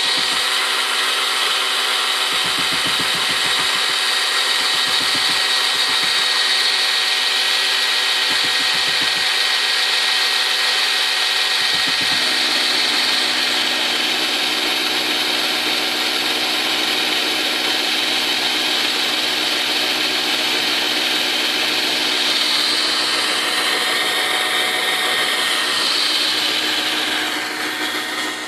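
Old 7.2-volt cordless drill running continuously under load, turning a trolling-motor prop on a length of all-thread to push a kayak: a steady motor whine with the prop churning the water. The level drops a little near the end.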